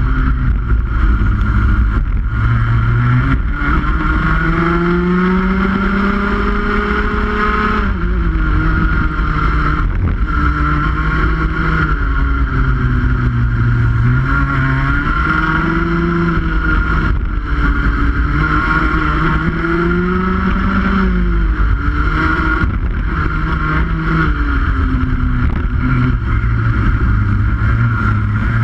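Rotax Max 125cc two-stroke kart engine at racing speed, its pitch rising as it accelerates and dropping sharply as the driver lifts for corners. One long climb ends in a sudden fall about eight seconds in, followed by several shorter rise-and-fall cycles.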